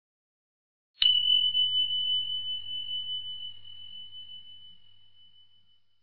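A single bell ding about a second in: one clear high tone that rings out and fades slowly over about five seconds.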